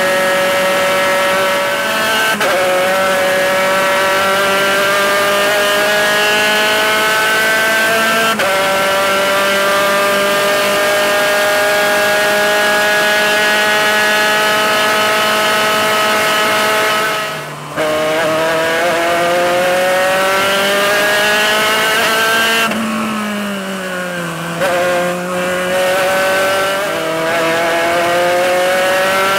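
Spec Racer Ford's four-cylinder engine heard from the cockpit at racing speed, the note climbing steadily under full throttle with sudden drops in pitch at upshifts about 2 and 8 seconds in. Past the middle the sound briefly cuts out and then climbs again, falls in steps as the car slows and shifts down, and rises once more near the end.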